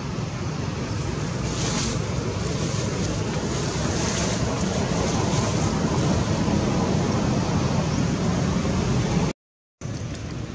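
Steady wind noise buffeting the microphone outdoors, cut off to silence for about half a second near the end.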